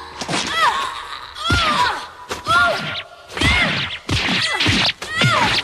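Fight-scene sound effects: about eight sudden hits and thuds in quick succession, each with a short, high pitched sound that rises and falls.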